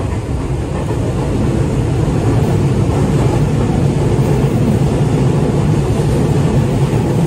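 Running noise of a 205 series electric train heard inside the passenger car: a steady rumble of wheels and running gear on the rails, growing louder a second or two in and then holding.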